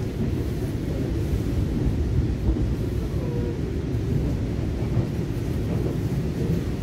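Steady low rumble of a Taiwan Railway EMU900 electric multiple unit heard from inside the passenger cabin as it runs along the line.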